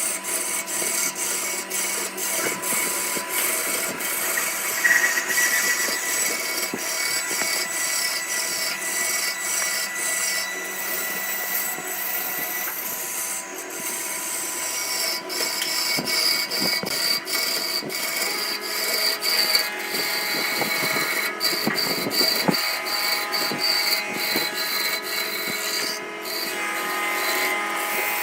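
Wood lathe running with a tool cutting into the spinning wood: a steady whine with many short clicks throughout, its pitch rising a little around the middle.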